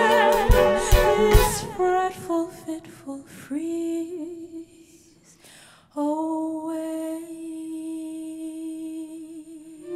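Contemporary chamber music: the ensemble with a few sharp drum hits in the first second and a half, thinning out to sparse notes. After a brief near-silence about five seconds in, a woman's voice holds one long sung note to the end.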